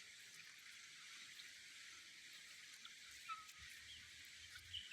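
Faint outdoor ambience: a steady high hiss with a few faint, scattered bird chirps.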